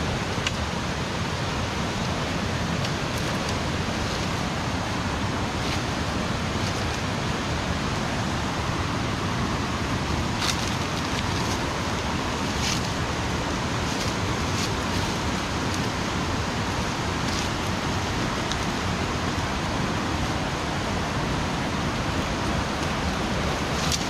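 Steady rush of a large waterfall's falling water, with a few faint clicks over it.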